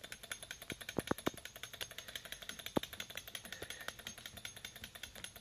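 Stirling engine tank model running, its mechanism and tracks making a rapid, even clicking, with a few louder clicks about a second in and again near three seconds. The owner says the tracks don't mesh properly with the drive sprockets, so the model barely drives itself.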